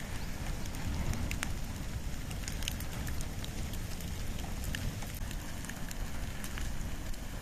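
Wood and bamboo fire burning: a steady low rumble with frequent small crackles and pops scattered through it.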